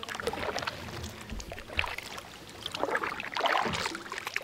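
Kayak paddle strokes splashing and dripping in the water, in uneven swishes, with a few light knocks as the kayak pushes through logs and floating debris.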